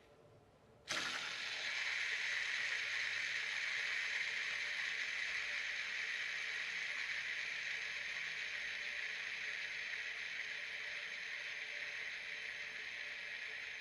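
LED fidget spinner's 608 ball bearing whirring as the spinner is set spinning about a second in; a steady whir that slowly fades as the spin winds down.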